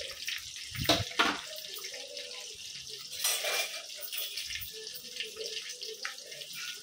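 Sliced onions and green chillies sizzling in hot oil in a pan: a steady high hiss, with two short knocks about a second in.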